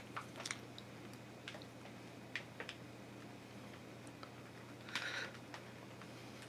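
Faint, irregular clicks of fingernails being bitten, with a brief louder scrape about five seconds in, over a low steady hum.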